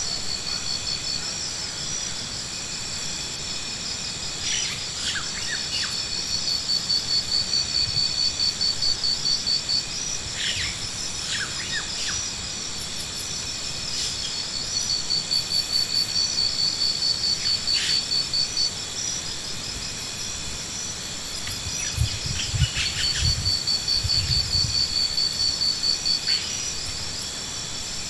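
Insects trilling steadily in a high, fast-pulsing chorus that swells and fades in runs of a few seconds. Several short downward-sweeping chirps cut through it from time to time.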